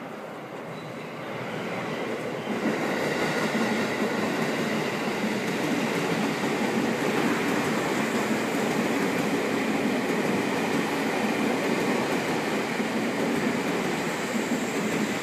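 A train running by on the rails: the steady noise of wheels on track swells about two and a half seconds in and then holds level.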